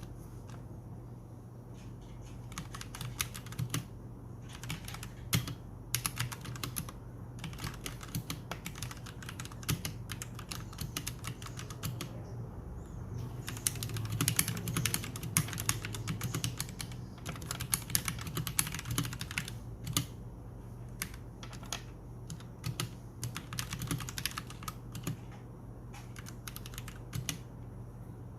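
Typing on a Royal Kludge G68 mechanical keyboard with OEM-profile keycaps: runs of quick keystroke clacks with short pauses between bursts, fastest about halfway through.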